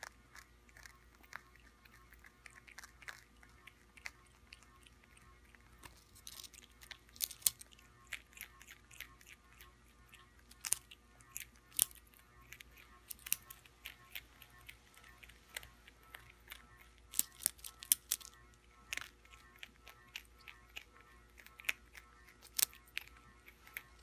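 A prairie dog biting and chewing a crunchy yellow corn chip: irregular, crisp crunches, coming in quick clusters between quieter stretches of nibbling.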